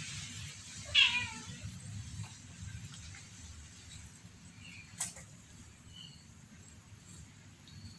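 A cat gives one short, loud meow about a second in, falling in pitch. About four seconds later there is a single sharp click, followed by a few faint high peeps.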